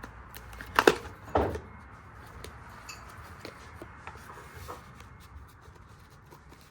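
Gym chalk packaging being handled: two sharp knocks about a second in, half a second apart, then soft rustling and a few faint clicks.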